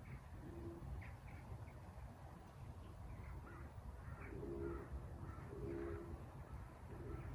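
A pigeon cooing in short, low, steady notes, strongest twice in the second half, with small birds chirping in brief high notes over a constant low rumble.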